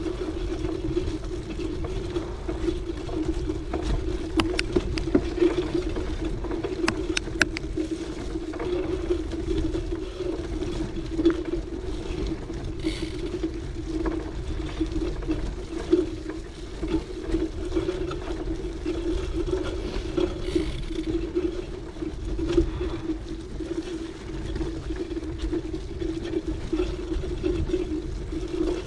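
Cyclocross bike riding along a dirt forest trail: continuous rumble of tyres and the ride, with a steady hum and scattered clicks and rattles from the bike.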